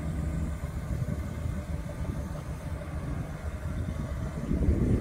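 Ford F-450 rollback tow truck's engine running steadily while the hydraulic bed is worked to slide a heavy car rearward for offloading. It gets louder near the end.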